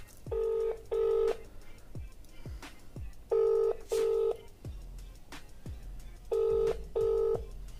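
A mobile phone on loudspeaker plays the ringback tone: three double rings, each a pair of short, low buzzing tones, repeating about every three seconds. This is the Indian-style double ring, the sign that the called phone is ringing and has not yet been answered.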